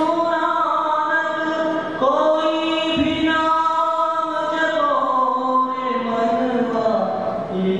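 Singing of a slow devotional song: a melody in long held notes, moving to a new pitch every second or two.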